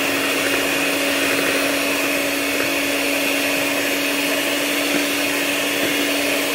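Prestige electric hand mixer running at a steady speed, its twin beaters whisking eggs and powdered sugar into a fluffy sponge-cake batter. It gives an even motor hum with a higher whine over it.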